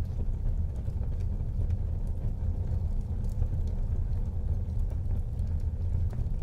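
Wood fire burning in a fireplace: a steady low rumble of the flames with scattered small crackles and pops.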